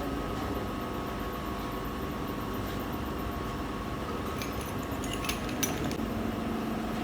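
Steady workshop machinery hum, with a few light metallic clinks about two-thirds of the way through.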